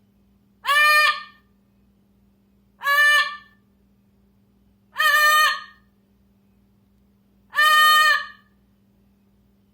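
A bird repeating one loud call four times, about every two and a half seconds, each call about two-thirds of a second long, over a steady faint hum.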